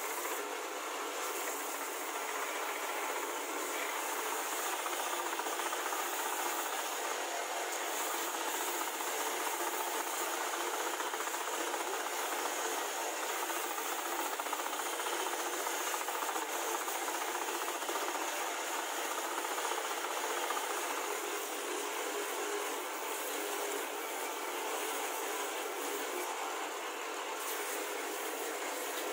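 Homemade bench belt sander running with plywood pressed against the moving abrasive belt: a steady, even hiss of sanding over the motor's hum.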